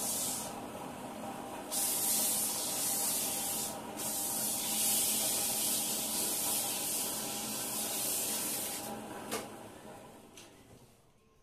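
Steady hissing noise from a workshop machine over a steady hum. The hiss drops back between about half a second and two seconds in, cuts briefly near four seconds, and fades away over the last two seconds, with a sharp tick about nine seconds in.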